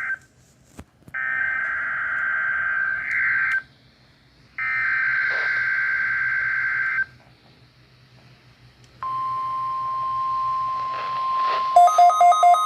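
NOAA Weather Radio Required Weekly Test tones. Two bursts of the SAME digital header, a rasping warble about two and a half seconds each with a second's gap between them, are followed after a pause by the steady 1050 Hz warning alarm tone, which starts about nine seconds in. Near the end a rapid electronic beeping, about five beeps a second, sounds over the alarm tone.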